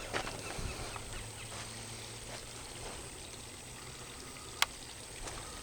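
Quiet creekside ambience: faint water sounds under a steady high-pitched whine, with a few soft ticks early on and one sharp click near the end.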